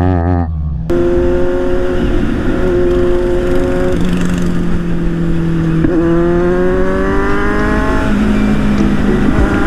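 Motorcycle engine heard from the rider's seat over wind and road noise, with a brief wavering sound at the very start. The engine note holds steady while cruising, then climbs in pitch as the bike accelerates from about six seconds in, and drops at a gear change about eight seconds in.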